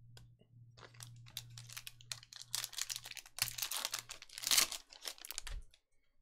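Foil wrapper of a Panini Select soccer card pack crinkling and tearing as it is ripped open by hand. The crackling comes in a dense run that is loudest just before it stops, near the end.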